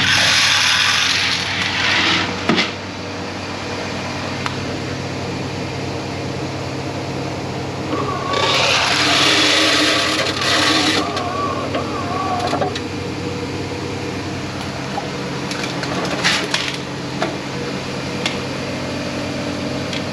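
Steady hum of running machinery, with two rushes of hiss about two and three seconds long, one at the start and one about eight seconds in, and scattered clicks and knocks of handling.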